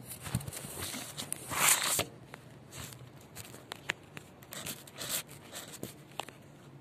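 A tortoise chewing dry pellet food, giving scattered sharp crunches every half second to a second. A loud rustling scrape about one and a half seconds in is the loudest sound.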